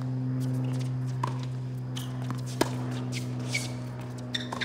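Tennis ball struck by rackets and bouncing on a hard court during a doubles rally: sharp pops about a second apart, the loudest about two and a half seconds in, with a quick cluster near the end. A steady low hum runs underneath.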